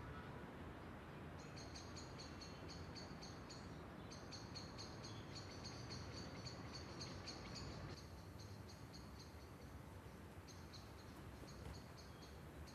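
Faint crickets chirping in repeated trains of short, high pulses, about four a second, stopping and starting, over a low steady hiss of room tone.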